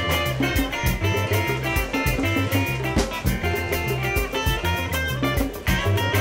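Upbeat band music: plucked guitar lines over bass and a steady drum beat.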